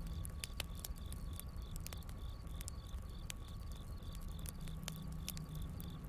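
Wood campfire crackling with sharp, irregular pops over a low rumble, while crickets chirp in a steady, evenly spaced pulse.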